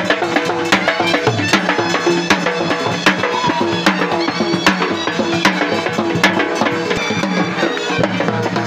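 Live Balochi Lewa dance music: a double-headed dhol drum beaten in a steady driving rhythm, a heavy stroke about every 0.8 seconds with lighter strokes between, and a melody playing over it.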